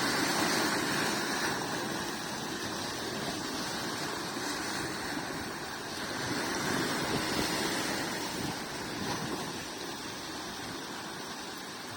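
Sea waves washing in and drawing back on the shore, a steady rush of surf that swells twice, near the start and again about halfway through.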